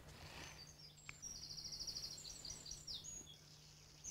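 A songbird singing one short, high phrase about a second in: a fast run of repeated notes, then a few varied notes, over a faint steady low hum.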